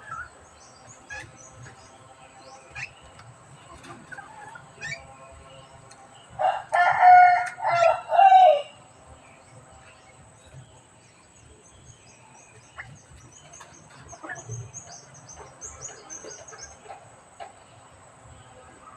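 A rooster crows once, loudly, about six seconds in, a multi-phrase cock-a-doodle-doo. Faint high bird chirps and twitters come and go around it.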